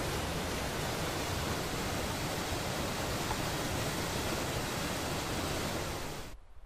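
Hethpool Linn waterfall: white water pouring down a rocky gorge into a pool, a steady, loud rush that cuts off suddenly near the end.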